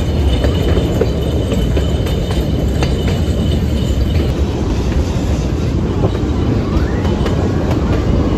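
Puffing Billy narrow-gauge steam train running, its carriage rumbling steadily with scattered clicks from the wheels on the rails, heard from an open-sided carriage.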